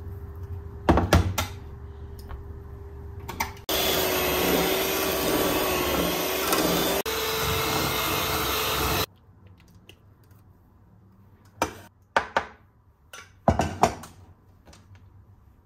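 Electric mixer beating cream cheese with cream for the cream-cheese cake filling. It runs loudly for about five seconds, cuts out for an instant and comes back at a slightly higher pitch, then stops suddenly. A couple of knocks come before it and a few light clicks after it.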